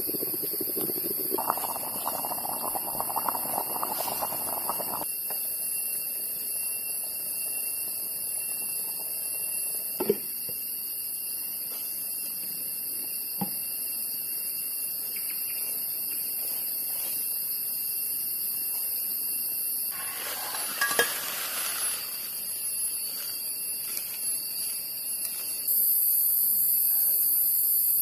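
Steady high-pitched drone of forest insects, several whining tones held without a break, growing louder near the end. A couple of short knocks sound in the middle.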